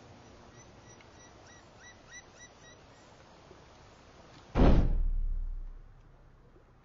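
A sudden deep boom about four and a half seconds in, the loudest thing here, its low rumble dying away over about a second and a half: a film sound-design hit. Before it, quiet outdoor ambience with a few faint chirps.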